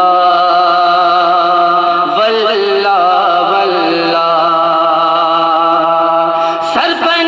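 Naat-style vocal intro: voices holding long hummed notes over a steady low drone, with brief pitch glides about two and four seconds in.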